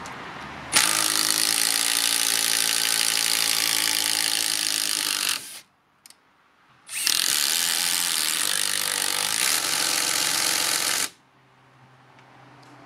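HiKOKI WH36DC 36 V triple-hammer impact driver hammering a large stainless coach screw into timber under heavy load. It runs in two long bursts of about four seconds each, with a pause of about a second and a half between them.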